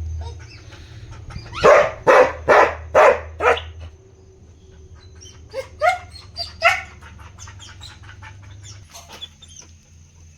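A dog barking: a quick run of about five loud barks, then after a short pause three or four more, spaced further apart, over a steady low hum.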